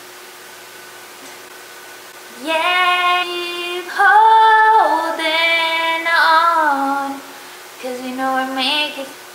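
A woman singing alone in long held notes that slide between pitches, starting about two and a half seconds in after a faint steady hum, with short pauses between phrases.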